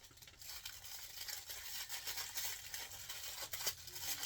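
Small plastic toy-accessory wrapper being handled and torn open: a continuous scratchy rustling and crinkling.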